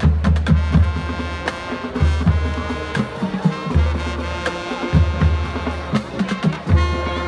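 High school marching band playing: the drums keep a steady beat, and brass chords come in about a second in and are held over deep low notes.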